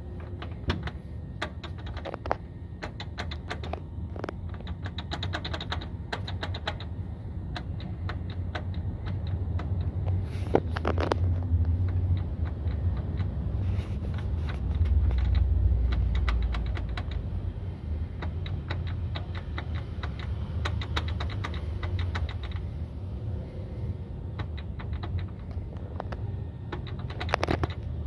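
Citroën C3 on the move: a steady low road rumble, swelling about halfway through, with many short sharp clicks and rattles from the suspension, the suspension noise being diagnosed.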